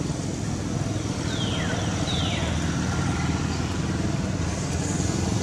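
A motor engine running steadily with a low, even rumble. About a second in, two short high squeals follow each other, each sliding down in pitch.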